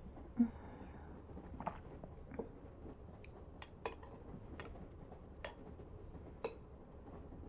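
Close-miked mouth sounds of chewing and sipping: about ten soft, irregular clicks and smacks, over a faint steady low hum.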